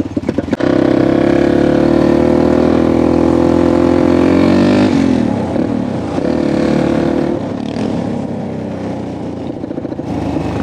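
A motorcycle engine revs up suddenly about half a second in and holds at high revs for about four seconds. The pitch then falls as the throttle closes, holds again briefly at lower revs, and eases off near the end.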